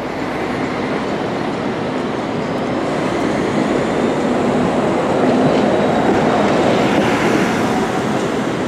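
Diesel engine of a Scania-chassis Marcopolo Paradiso 1800 DD G7 double-decker coach pulling away at low speed, a steady rumble that grows louder as the coach comes closer.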